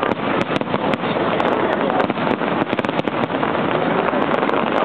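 Fireworks display going off: a dense, irregular stream of bangs and crackles with no break.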